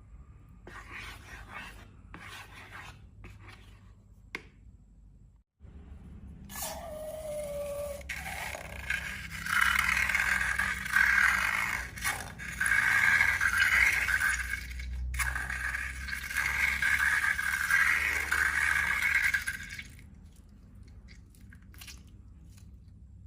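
Faint rustling, then a short falling squeak and a long, loud spell of scraping and rubbing lasting about twelve seconds, which dies down near the end. The sounds come from balloons and slime being handled.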